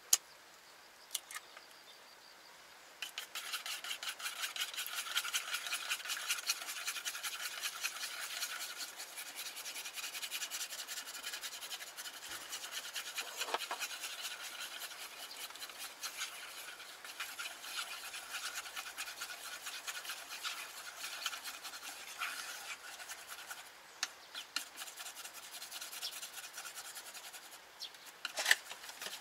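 Eggs being beaten with chopsticks in a small frying pan: a continuous rapid scraping and clicking of the chopsticks against the pan, starting a few seconds in. A sharp crack of an egg shell at the very start is the loudest single sound.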